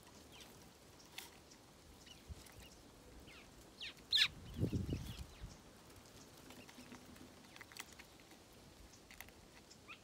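Small birds chirping at a seed feeder, with scattered short high chirps and one louder quick call about four seconds in. A low dull thump follows just after the call.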